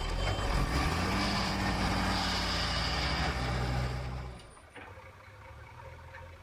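Heavy diesel engine running hard under load, its pitch sagging slightly, with a loud rushing noise over it. About four seconds in it drops abruptly to a much quieter, low engine running.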